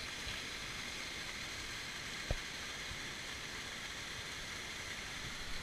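Steady rushing of a mountain stream, with one short knock about two seconds in.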